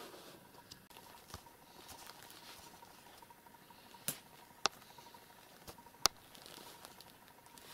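Quiet room with a few small ticks and three sharp clicks, about four, four and a half and six seconds in.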